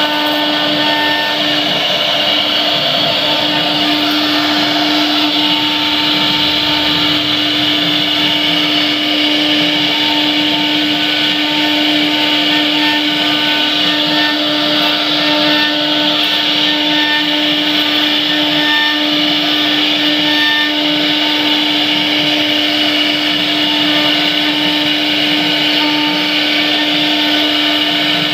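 CNC router spindle running at a steady whine while its bit cuts a door design into wood, over a constant hiss of routing.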